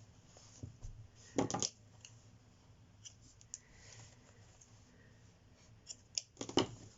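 Quiet handling of a crocheted doll and yarn, with a few sharp clicks: a pair about a second and a half in and a small cluster near the end.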